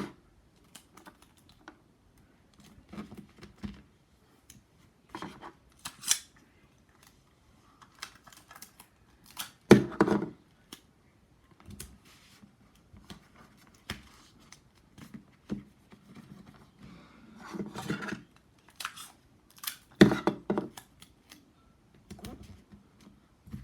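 Sticky tape being pulled off the roll and laid onto paper, with crinkling paper and small handling clicks. There are several short rasping bursts, the loudest about ten and twenty seconds in.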